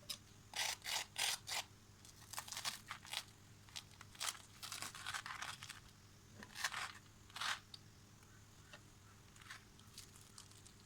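Short, crisp tearing and crinkling noises from hands working on food, coming in irregular groups of a few quick strokes each.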